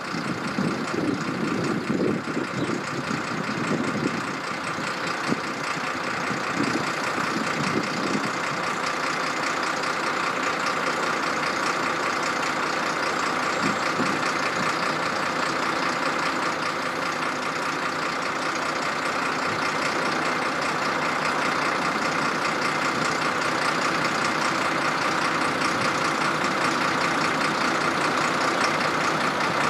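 WESTbahn Stadler KISS double-deck electric multiple unit approaching the station, a steady running noise that grows slowly louder as it nears.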